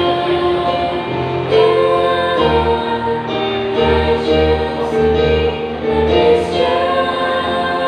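A small group of women singing a gospel song into microphones, over an instrumental accompaniment with a pulsing bass line.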